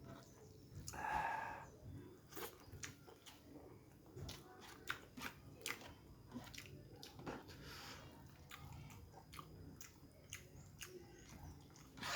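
Close-miked chewing, biting and lip-smacking of a person eating a cooked red snapper head, with many small wet clicks and a short mouth sound about a second in.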